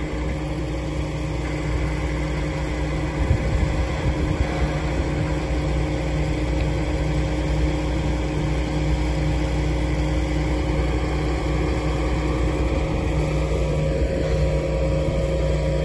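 Tractor engine running steadily at a constant speed, driving the hydraulics that slowly tip the hopper of an Elho Scorpio rock picker to dump.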